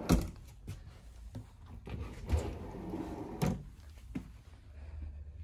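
Storage drawers beneath bunk beds being pulled open by hand: a sharp knock at the start, the loudest sound, then several lighter knocks and clicks over the next few seconds.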